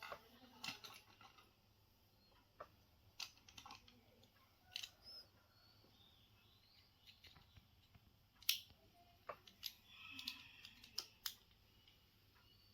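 Scattered small clicks and taps of hard toy parts being handled and fitted together, irregularly spaced, with one sharper click about eight seconds in.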